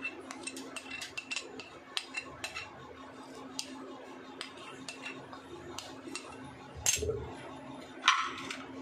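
An orange plastic spoon scraping and tapping against a plate as curd is scraped off into a bowl: a quick run of light clicks and scrapes, then scattered taps, and two louder knocks near the end.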